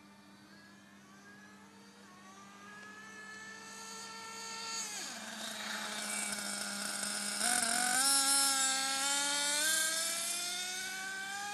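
Small glow-fuel (nitro) engine of a radio-controlled car running at full song as the car accelerates, its whine climbing steadily in pitch. It drops sharply about five seconds in, then climbs again, louder, from about seven and a half seconds in.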